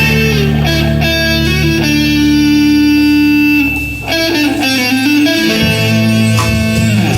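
Live band playing instrumental music led by an electric guitar, which holds one long note from about two seconds in before the sound dips briefly near four seconds and the playing continues.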